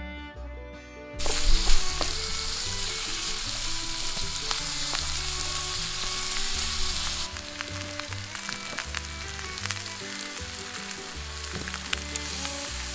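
Food sizzling and frying in a pan over an open campfire, with a wooden spatula stirring and scraping through it. The sizzle starts suddenly about a second in and eases somewhat about halfway through.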